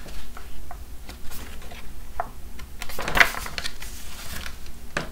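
Pages of a paperback picture book being turned and handled: scattered paper rustles and light clicks, with a denser rustle about three seconds in and a sharp click near the end.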